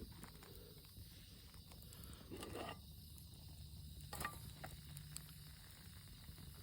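Faint, steady insect chirping with a few small clicks and a brief rustle.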